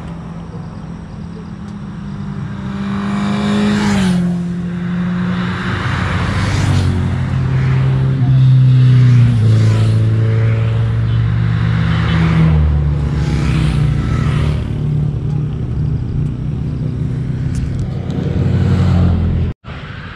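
A group of superbikes passing at speed one after another, each engine note dropping in pitch as it goes by. The loudest pass comes about eight to nine seconds in.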